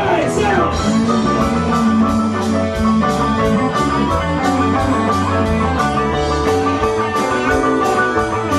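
Live rock band playing an instrumental passage: electric bass, electric guitar, keyboard and drum kit, with a steady drum beat of about three hits a second under held notes.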